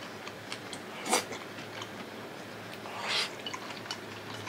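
A person chewing food, with small wet mouth clicks, a short sharp noise about a second in and a longer one around three seconds in.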